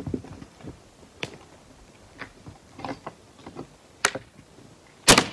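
Scattered small clicks and a few sharp knocks of wood and tools being handled at a partly sawn log. The loudest is a double knock near the end.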